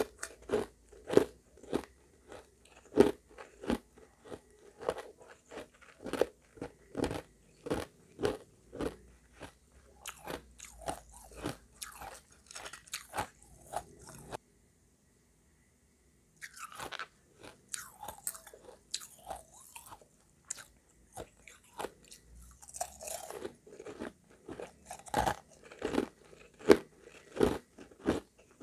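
Close-miked chewing of hard refrozen shaved ice mixed with crushed ice: a steady run of crunching bites, about one and a half a second. It breaks off for about two seconds of dead silence near the middle, then starts again.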